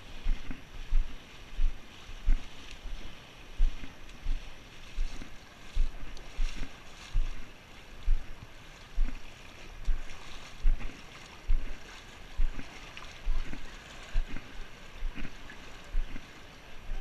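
Footsteps wading through shallow river water: a slosh and a low thump about every two-thirds of a second, over a steady hiss of moving water.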